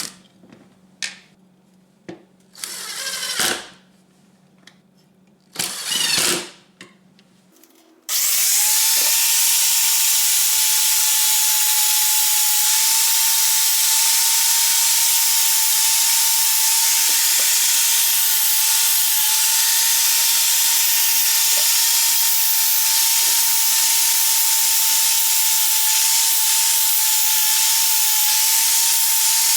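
A few short clicks and two brief whirs, then about eight seconds in an electric power tool starts up and runs steadily at high speed with a constant whine, the sound of a rusted door hinge being power-cleaned.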